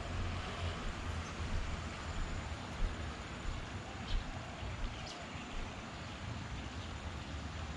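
Outdoor ambience: a steady low rumble and hiss, with a few faint short chirps and a couple of light clicks.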